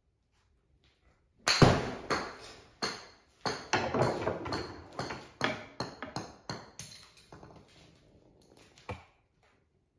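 A golf iron striking a ball off a hitting mat with a sharp crack, followed by a run of knocks and clatters that grow quieter over several seconds, and one more lone knock near the end.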